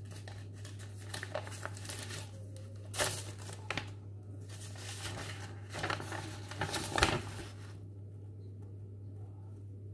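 Paper envelope being opened and the letter inside pulled out and unfolded: paper rustling and crinkling, loudest about three seconds in and again around six to seven seconds, stopping about eight seconds in.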